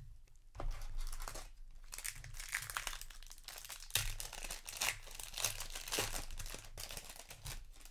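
Foil wrapper of a Magic: The Gathering set booster pack crinkling in the hands and being torn open, in a run of crackly rustles with a few sharper rips.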